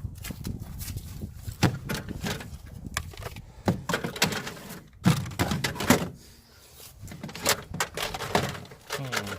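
Irregular knocks, thunks and clatter of loose objects being shifted and pulled out of a cluttered car trunk, with a short quieter lull past the middle.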